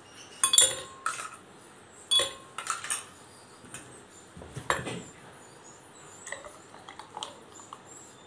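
Sharp clinks and knocks of glassware and a mixer jar being handled, several spaced over the first five seconds, then a few faint taps.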